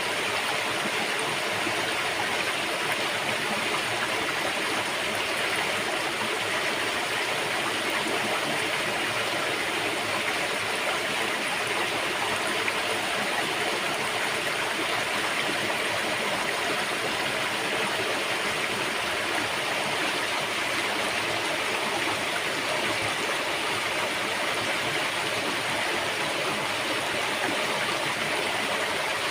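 River water flowing and rushing steadily over rocks, an even splashing that does not change.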